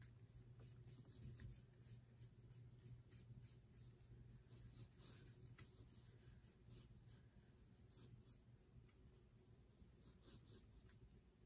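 Faint, irregular scratchy swishes of a foam sponge brush being pushed and pulled across a metal tray wet with alcohol ink, over a low steady hum.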